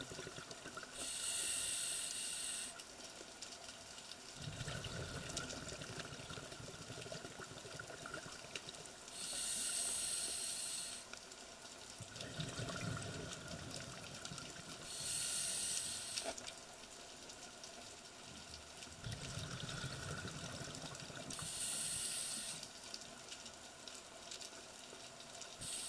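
Scuba diver breathing through a regulator: a hiss on each inhale and a low rumble of exhaled bubbles between them, four breaths about six seconds apart.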